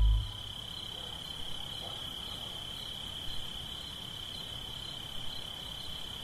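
A steady, high-pitched insect trill over a faint hiss.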